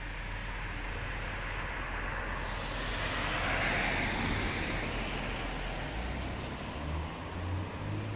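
A car passing on the road, its tyre and engine noise swelling to a peak about three to four seconds in and then fading. A low engine rumble follows near the end.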